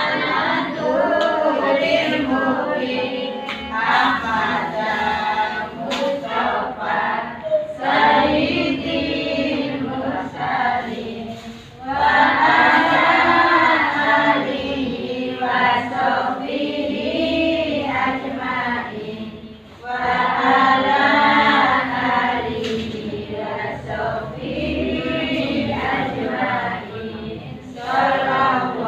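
A group of voices singing an Arabic devotional song in chorus, in long sung phrases with short breaks about 12 and 20 seconds in.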